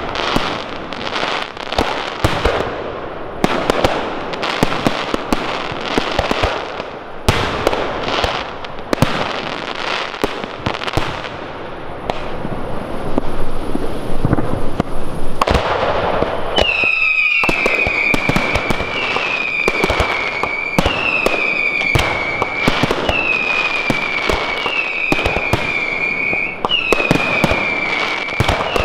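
Professional fireworks display, with aerial shells bursting in a dense, rapid run of sharp bangs. A little over halfway in, a series of whistles joins the bangs, each falling slightly in pitch and repeating about every second and a half.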